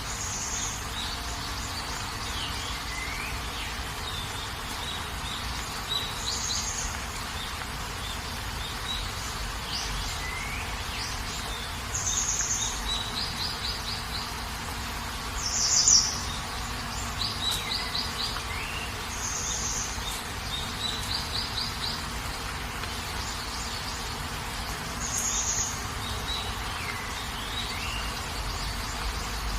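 Birds chirping and trilling in short repeated call groups every few seconds, over a steady hiss. The loudest call comes about halfway through.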